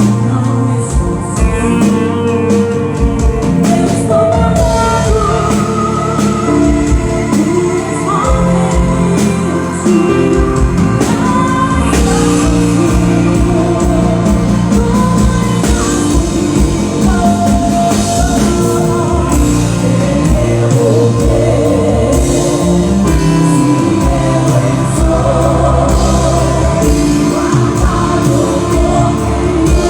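Gospel song with singing over a band, with drums keeping a steady beat throughout.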